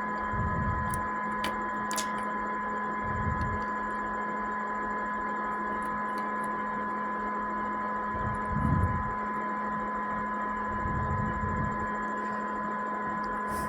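Steady electrical hum with a high whine at a few fixed pitches, broken by a few soft low bumps and faint clicks.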